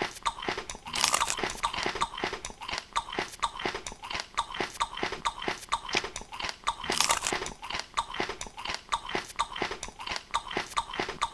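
Close-up mukbang eating sounds: crunchy food being bitten and chewed in quick crisp crunches, about three or four a second, with two longer, louder crunching bites, about a second in and about seven seconds in.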